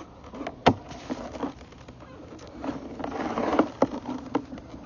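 Irregular clicks and knocks with a brief scraping stretch a little past the middle, as a sewer inspection camera and its push rod are worked along the pipe.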